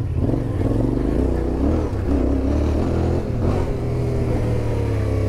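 Yamaha Ténéré 700 motorcycle's parallel-twin engine running under throttle on a climb, its pitch rising and falling as the rider works the throttle.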